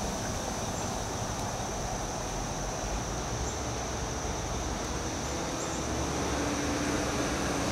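Steady outdoor background: a high, even insect buzz over a low rumble.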